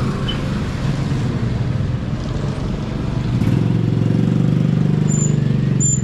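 A motor vehicle engine running close by: a steady low hum that swells louder about three seconds in and holds.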